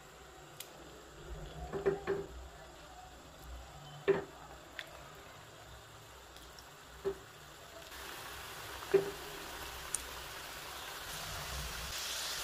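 Pieces of maida dough dropped one at a time into hot oil in a kadai, each going in with a short plop. From about two-thirds of the way through, a faint frying sizzle builds up as the oil bubbles around the growing batch.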